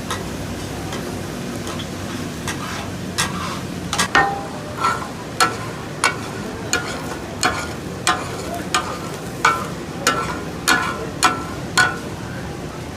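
Steel spatulas striking a hot tawa griddle in a steady ringing clatter, chopping brain masala takatak-style, over the sizzle of frying. The strikes start about three seconds in, at roughly one and a half a second.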